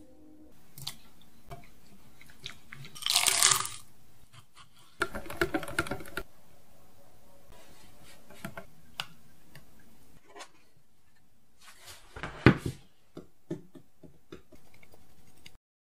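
Close-up kitchen preparation sounds: an egg being separated into a ceramic bowl and a silicone whisk stirring a thick chocolate mixture, with swishes and scattered clicks. A sharp knock about twelve seconds in is the loudest sound.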